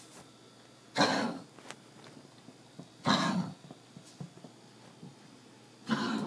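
Pug coughing with kennel cough: three short, harsh coughs about two to three seconds apart, each about half a second long.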